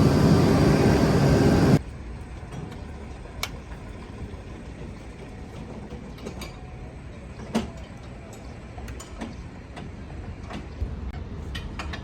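Heavy road-works machinery running loudly with its diesel engine, cutting off abruptly about two seconds in to a quieter, low, steady rumble of machinery with scattered light clicks and knocks.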